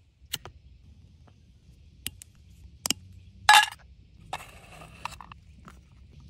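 Handling sounds from hands working with a paper napkin, a petroleum jelly jar and a tin can: several sharp clicks and taps, a brief loud pitched rasp about three and a half seconds in, then about a second of scraping rustle.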